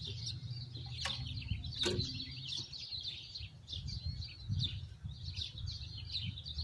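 Small birds chirping rapidly and continuously over a low rumble, with two sharp clicks about one and two seconds in.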